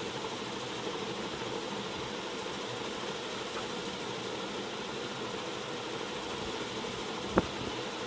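Steady background hiss and hum, with one sharp click about seven seconds in.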